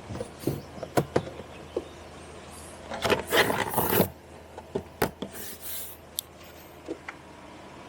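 Hands handling an SUV's cargo-area trim and fittings: a few sharp knocks and taps, a scraping rub lasting about a second midway, then more taps and a brief rustle.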